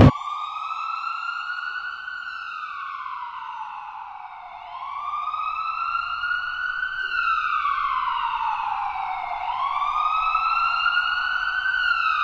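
Emergency vehicle siren in a slow wail. The pitch rises for about two seconds, then falls for about two and a half, and repeats over and over.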